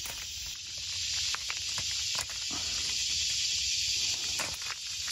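Steady high-pitched hiss of an insect chorus, with scattered light clicks and rattles from a wire-mesh minnow trap being handled and cut open.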